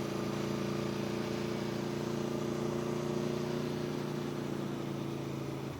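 Aprilia Tuono V4 1100's V4 engine running at a steady, even pitch while the motorcycle cruises, shifting slightly down right at the end.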